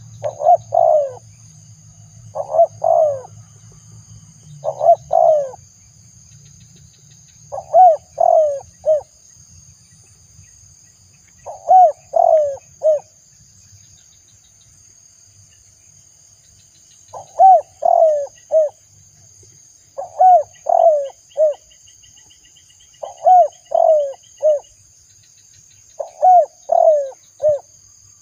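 Spotted dove cooing: nine short phrases of three or four low coos each, repeated every few seconds with one longer pause midway. A steady high insect drone runs underneath.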